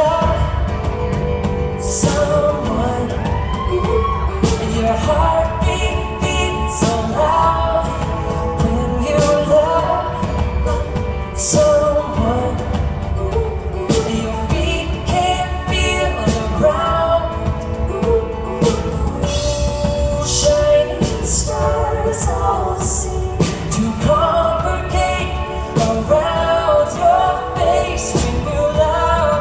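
A live band playing a pop song: singing over acoustic and electric guitars, keyboards and a drum kit with a steady beat, heard from the audience in a large concert hall.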